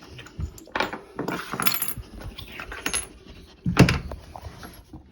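Metal tools and parts clinking and clattering as they are handled while a washing machine is taken apart, with a louder knock about four seconds in.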